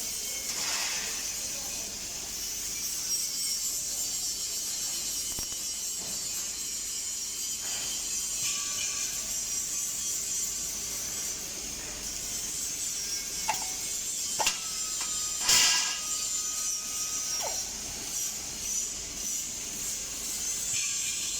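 Robotic MIG welding arc on steel tube, crackling with a steady high hiss. A few sharp snaps come in the second half, the loudest about two-thirds through.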